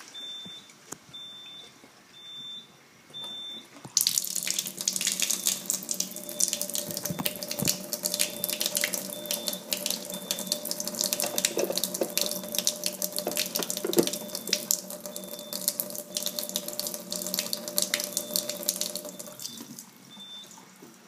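A string of short high electronic beeps, then tap water gushing through a Kangen water ionizer into a sink from about four seconds in, with a faint steady hum beneath it and the beeps faintly repeating. The water is running to flush loose carbon out of a newly fitted filter.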